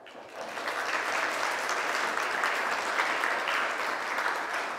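Audience applauding, the clapping building up over about the first second and then holding steady.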